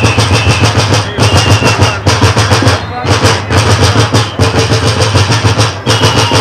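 Bear-dance troupe's many drums beating in a fast, steady roll, with short high whistle notes sounding over them a few times.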